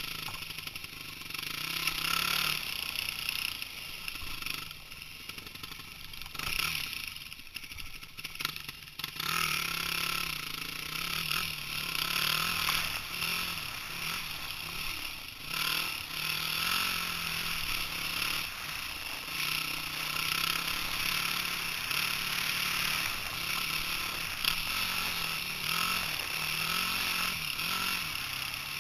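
Dirt bike engine running under way on a forest trail, its pitch rising and falling constantly with the throttle. It is choppier for the first nine seconds or so, then runs steadier.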